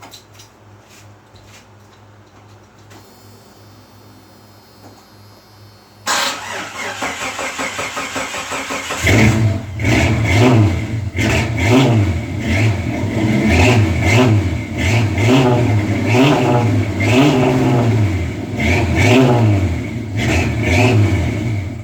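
Car engine cranking for about three seconds, then catching and being revved up and down over and over, roughly one rev a second.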